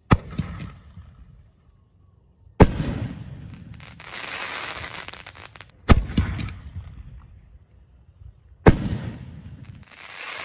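Two 'Warriors' aerial firework shells from Vinayaga Sony Fireworks. Each is launched with a sharp thump and breaks overhead with a bang about two and a half to three seconds later, followed by a crackling, hissing fall of stars.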